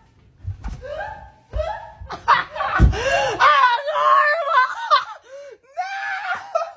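A woman laughing loudly in fits, the laughter rising to high-pitched shrieks in the middle. A few dull low thumps come in the first three seconds.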